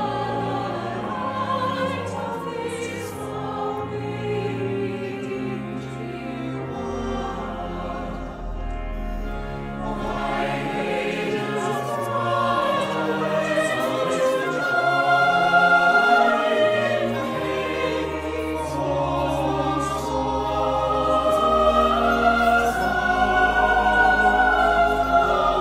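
Mixed choir singing in several parts, with organ accompaniment holding low sustained notes beneath. The singing swells louder about halfway through.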